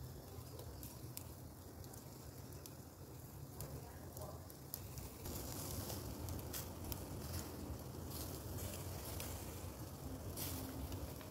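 Chicken kebab skewers sizzling over a charcoal grill as they are basted, with many small crackles and pops from the fat dripping onto the coals. The sizzling grows louder about five seconds in.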